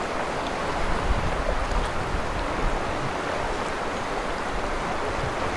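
Steady rush of fast-flowing creek water, an even hiss.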